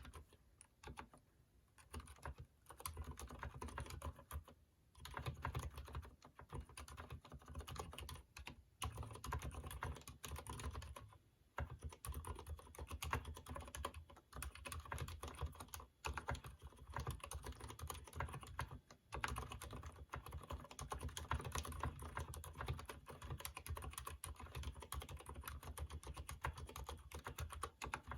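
Continuous typing on a Durgod mechanical keyboard with Cherry MX Silent Red switches that are not yet lubed: a dense stream of key presses, broken by short pauses every few seconds.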